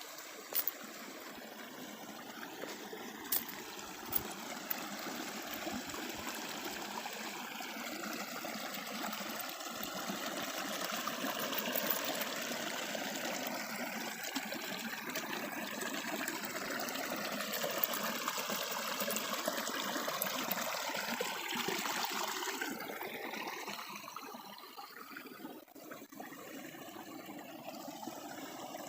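Small brook babbling and trickling, a steady rush of running water that grows louder through the middle and eases for a few seconds near the end. A few light ticks in the first few seconds.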